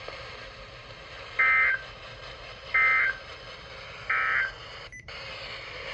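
Three short bursts of Emergency Alert System digital data tones, the warbling end-of-message (NNNN) code, about 1.35 s apart over the steady hiss of an NOAA Weather Radio broadcast, marking the end of the alert. The hiss cuts out briefly near the end.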